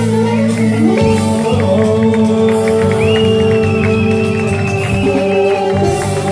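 Live Greek popular music from a small band with keyboard: an instrumental passage in which a melody line glides up about a second in and holds long notes.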